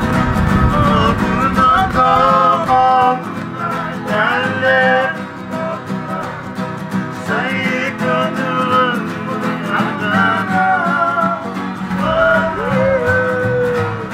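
Several acoustic guitars strummed together, with men singing along in a wavering melody.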